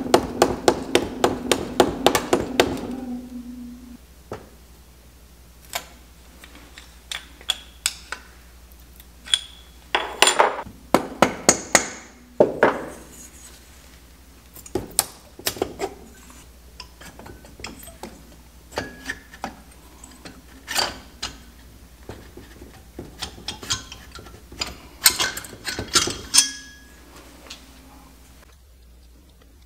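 Quick hammer taps on a Yamaha XS400 engine casting, struck where it is braced by webs: a fast run of ringing taps in the first three seconds. Then scattered knocks and clinks of metal parts and tools.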